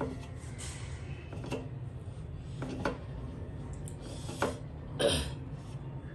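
Close-up eating sounds: chewing, with a few short clicks and smacks as fingers pick food from a bowl on a metal plate. The loudest comes about five seconds in. A steady low hum runs underneath.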